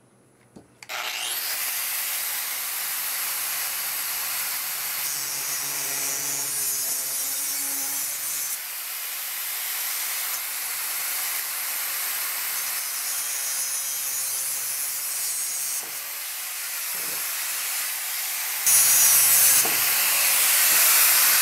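Angle grinder with a flap wheel smoothing a stainless steel tube: the grinder starts up about a second in, then grinds steadily, getting louder near the end.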